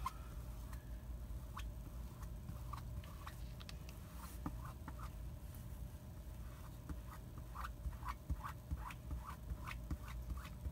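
Ink being dabbed and pressed through an adhesive stencil transfer onto a t-shirt: irregular soft, tacky taps and pats that come faster in the second half.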